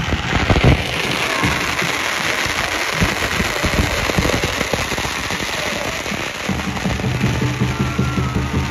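Strings of firecrackers crackling and popping amid a noisy wash of fans cheering. Background music comes in about six and a half seconds in.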